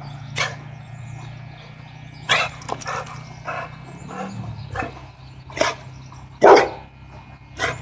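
Blue pit bull barking: a string of short single barks at uneven intervals, the loudest two near the end. The barking is playful, from a dog that is wanting to play.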